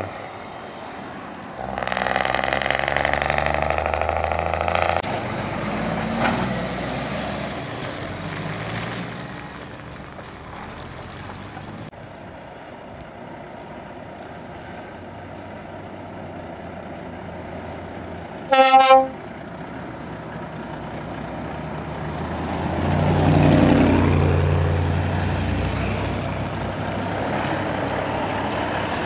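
Heavy lorries running past on a lane, with a truck horn giving one short, loud toot about two-thirds of the way in. Near the end a Volvo FH tractor unit's diesel engine grows louder as it pulls past close by.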